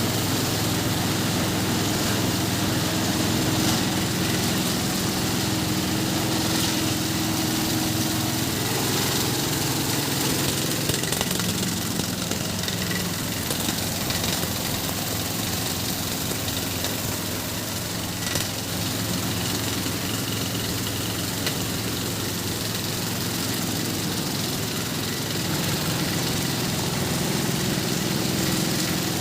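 A waste sorting machine driven by a 16 HP diesel engine, running steadily. The engine note weakens about ten seconds in and strengthens again near the end.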